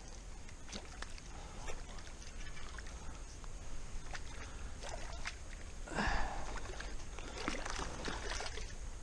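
Faint splashing and sloshing of water from a hooked golden perch being played at the surface, with scattered small clicks. The loudest burst comes about six seconds in, with more splashing a second or two later.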